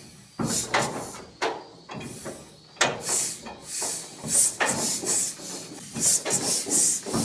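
John Deere Model D engine being turned over by hand at its flywheel, not yet firing: irregular hissing puffs, one or two a second, with sharp clicks and knocks.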